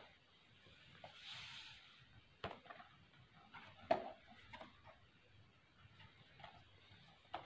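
Faint handling of a small cardboard retail box as it is turned over in the hands: scattered soft taps and scrapes, the sharpest about four seconds in, with a brief soft rustle about a second and a half in.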